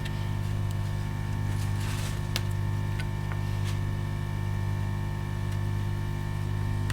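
Steady electrical hum made of several steady tones, with a few faint light clicks a couple of seconds in.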